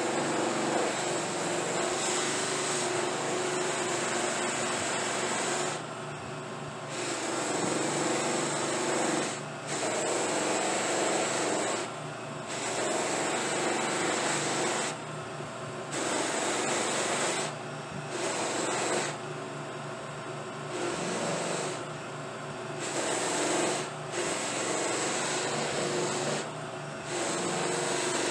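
Buffing machine's motor running steadily under repeated stretches of sandpaper rubbing on a briar pipe, each a couple of seconds long with short pauses between.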